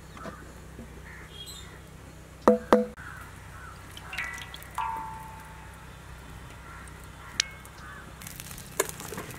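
Birds calling a few times, with a couple of sharp clicks, over a steady outdoor background; a light crackling starts near the end.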